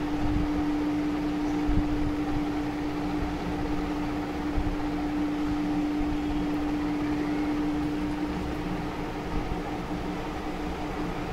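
Steady machine hum with one constant low tone, which weakens about eight seconds in.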